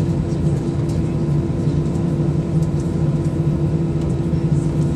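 Airliner's jet engines and cabin noise heard from a window seat while the plane taxis: a steady drone with a constant low hum and no rise in pitch.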